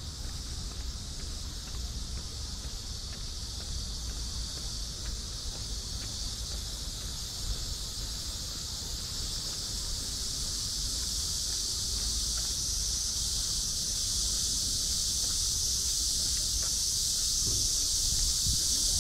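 A steady chorus of insects, a dense high buzz that grows gradually louder, over a low rumble of wind on the microphone.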